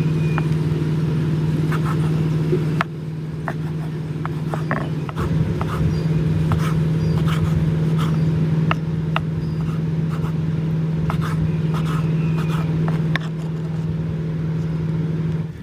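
A small engine running at a steady speed, with scattered sharp clicks and knocks over it; it cuts off at the end.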